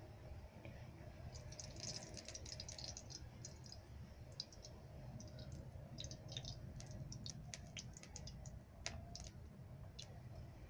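Coconut oil being spooned into a heavy-bottomed wok, with faint, irregular ticking and crackling as it meets the pan.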